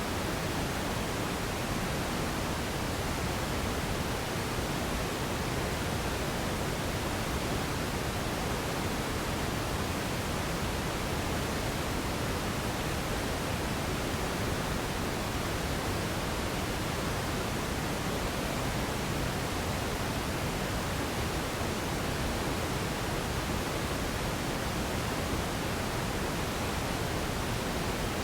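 Radio static: a steady, unbroken hiss with no tones, voices or crackles in it.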